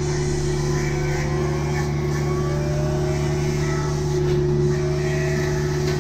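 Kubota U55-4 mini excavator's diesel engine running with the hydraulic MTL XC5 brush cutter head spinning: a steady low drone with a steady hum above it, a few gliding tones and faint knocks over the top.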